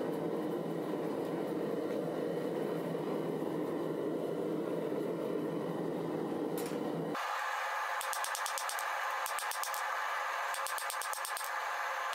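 Forge running with a steady rushing noise as the knife blade heats to welding heat. About seven seconds in it cuts to hammer blows on the hot blade on the anvil, which come in quick runs of sharp strikes.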